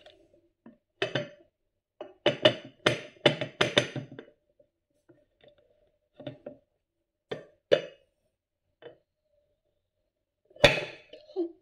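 Knocks and clinks of an upturned plastic pot against a ceramic plate as the pot is worked loose from a set gelatin and lifted off. A quick run of knocks comes about two to four seconds in, a few single knocks follow, and the loudest clatter is near the end as the pot comes away.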